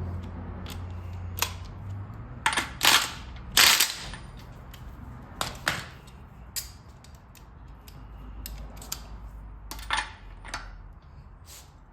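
Sharp metallic clanks and clicks of tools on a Sterling 10.5 rear axle as the pinion nut is tightened a little more to raise the pinion bearing preload, the loudest strikes about three to four seconds in and scattered ones after.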